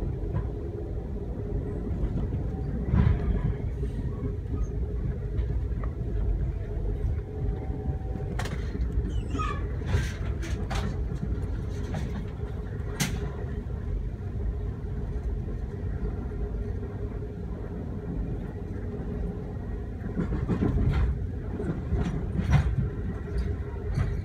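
Steady low rumble of a moving passenger vehicle heard from inside, with a faint hum and a few sharp clicks and knocks around the middle.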